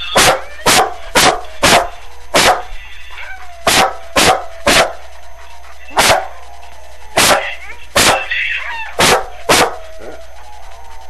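A dog barking repeatedly, about a dozen loud, sharp barks in uneven groups, in answer to a singing dog video played on a phone. Between the barks, fainter howling and music come from the phone's speaker.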